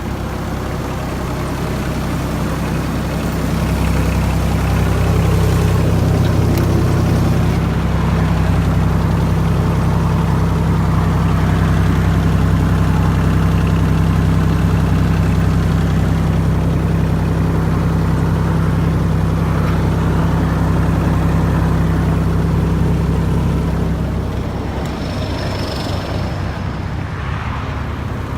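Terex PT-30 tracked skid steer's diesel engine running steadily, brought up to a higher speed about four seconds in, held there, then dropped back toward idle near the end.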